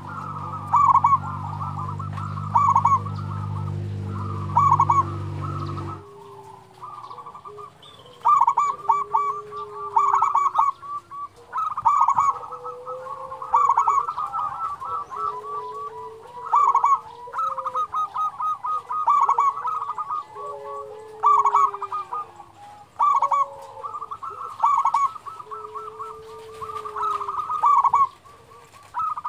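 Zebra doves (perkutut) singing: rapid stuttering coo phrases repeated every second or two, with lower drawn-out coos beneath them. A steady low hum runs under the first six seconds and cuts off suddenly.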